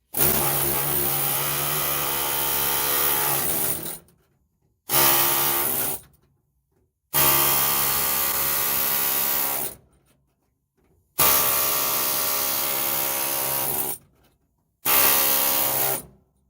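A power tool runs in five bursts of one to four seconds each, with a steady pitched drone and strong hiss, starting and stopping abruptly. It is working the spot welds that hold the torsion bar bracket to the car's underbody.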